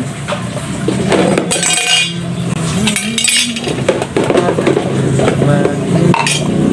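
Plates and dishes clinking and clattering against each other as they are washed by hand, in several separate knocks.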